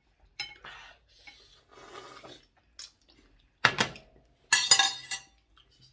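Spoons and cutlery clinking and scraping against bowls during eating, with a sharp knock just before four seconds and a louder rattling clatter about a second later.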